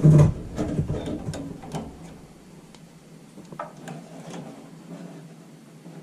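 Handling noise at a furnace control board: clicks, taps and rustling as wires and multimeter test leads are moved about, opening with a knock. The clicks are busiest in the first two seconds, then become sparse over a low steady hum.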